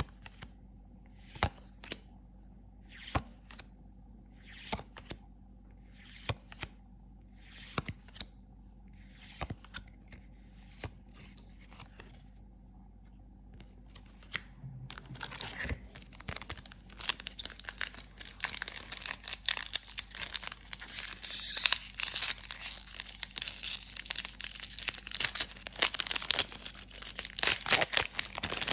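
Trading cards slid off the top of a stack one at a time, a soft swish about every second and a half. From about halfway on, a foil booster-pack wrapper crinkles and tears, growing louder near the end as the pack is handled and opened.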